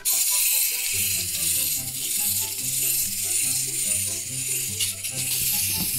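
Background music with a repeating bass line, starting suddenly, with a continuous high rattle over it like a shaker. There is one sharp click near the end.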